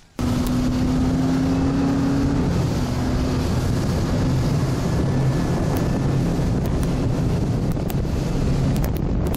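Bass boat's outboard motor running at speed, with heavy wind noise on the microphone. It starts suddenly just after the opening and stays steady.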